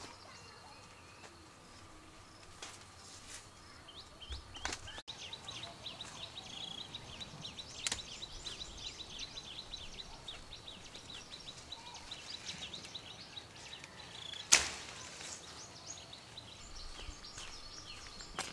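Rural outdoor ambience with rapid, evenly repeated high-pitched chirping from about five seconds in, broken by a few sharp knocks, the loudest about fourteen seconds in.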